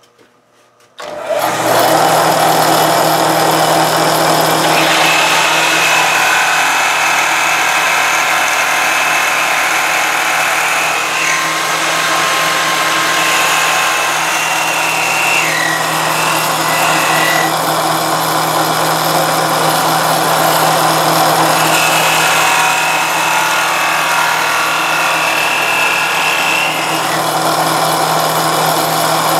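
Home-built wood lathe starting up about a second in, its electric motor and spindle then running steadily while a carbide-insert cutter, guided by a pattern tracer, turns a wooden spindle. A higher cutting whine comes and goes several times over the steady hum.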